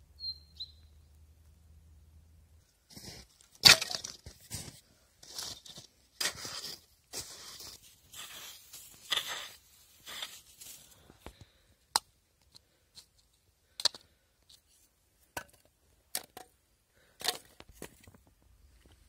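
Faint outdoor ambience with a short bird chirp, then a hatchet scraping and chopping through snow in a run of crunches. After that come a series of sharp, separate clacks as split firewood sticks are set against each other in a stack.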